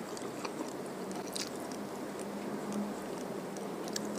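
Close-miked chewing of a mouthful of rice and fish curry, with scattered small wet clicks and smacks over a faint steady hum.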